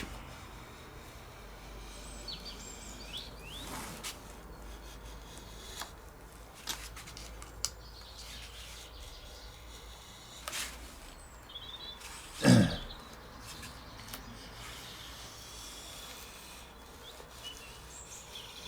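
Scattered light scrapes and small clicks of balsa being scraped and prised off a glued hardwood base with a hobby knife, with one louder, brief sound about twelve and a half seconds in. Faint bird chirps sound in the background.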